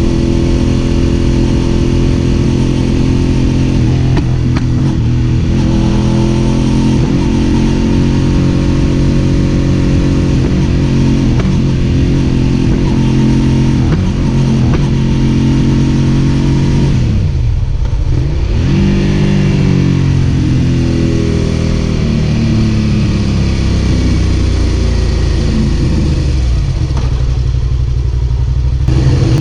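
Suzuki SV650's V-twin engine running, its pitch sagging and recovering a few times, most deeply about two-thirds of the way through. The uneven running is the misfire the owner is recording.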